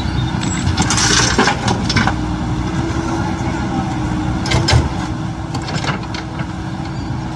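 Heavy diesel engine running steadily, with a constant whine over a low rumble and several sharp knocks about a second in and again near the middle.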